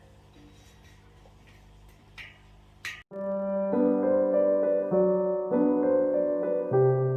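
Faint background music with a few light clicks, then about three seconds in a sudden cut to much louder piano music playing slow, sustained chords.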